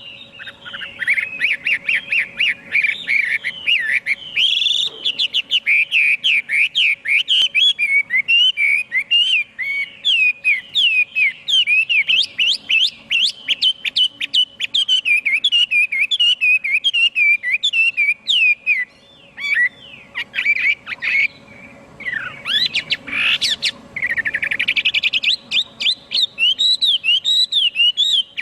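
Chinese hwamei singing a long, rapid run of varied whistled notes, rising and falling, with a couple of short breaks about two-thirds of the way through.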